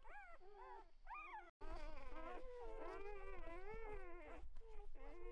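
Several newborn Weimaraner puppies whimpering and squeaking together, their thin, wavering cries overlapping. The sound drops out briefly about one and a half seconds in, then the cries carry on.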